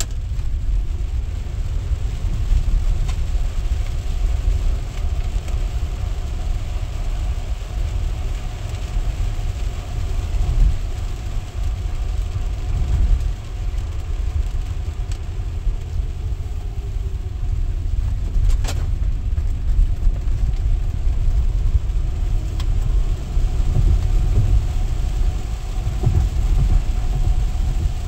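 Inside the cabin of a Tesla Model X, an electric car, driving on a rain-soaked road: a steady low rumble of tyre and road noise with a faint hum above it. There is a single sharp click a little past the middle.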